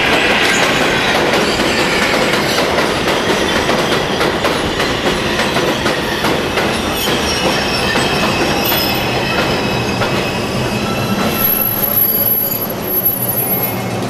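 R142 subway train pulling into an elevated station, its wheels rumbling and clattering on the rails with intermittent wheel squeal. The train slows as it passes, and thin high steady tones come in near the end.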